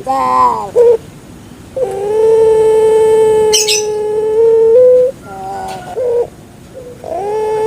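Puter pelung (Barbary dove) cooing in its deep, drawn-out style. A short call comes first, then a long steady coo held about three seconds, another short call, and a further long coo beginning near the end.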